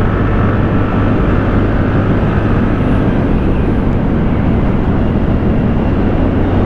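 Riding noise on a TVS Ntorq 125 scooter: wind rushing over the microphone with the single-cylinder engine running steadily underneath, a constant low hum.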